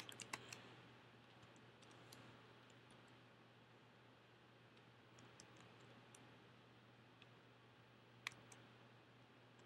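Faint, sparse keystrokes on a computer keyboard: a quick cluster of clicks at the start, then scattered single taps, with one sharper click near the end, over a low steady hum.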